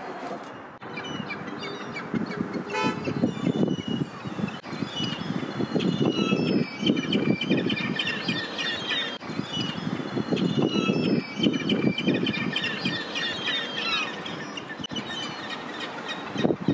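Gulls calling, many short, high cries overlapping, over a loud rushing noise that swells and falls in bursts of a second or two.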